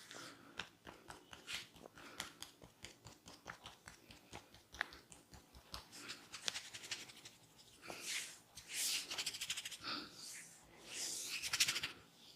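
Hands massaging bare skin: a run of light, quick clicks and pats, then brisk rubbing strokes about eight seconds in and again near the end, the last the loudest.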